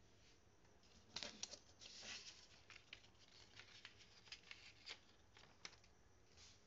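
Faint handling noise: a run of soft rustles and small clicks, thickest in the first couple of seconds and dying away by about two-thirds of the way through.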